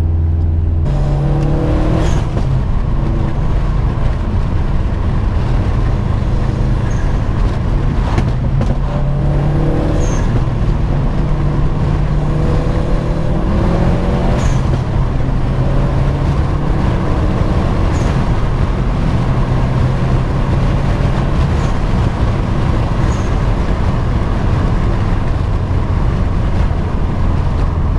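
Mapped Subaru WRX STI's turbocharged flat-four engine pulling hard, its pitch rising several times as it revs through the gears, heard from inside the cabin over steady road noise. A few sharp clicks come in between.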